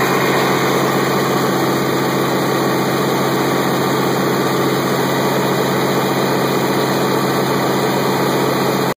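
Caterpillar 3412 V12 diesel engine running steadily at its governed generator speed, the generator holding about 480 V at 60 Hz during a test run.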